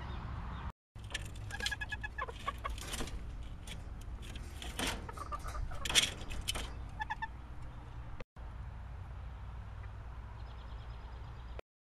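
Backyard chickens clucking in a burst of short, sharp calls, loudest about six seconds in, over a steady low hum. The sound cuts out for a moment three times.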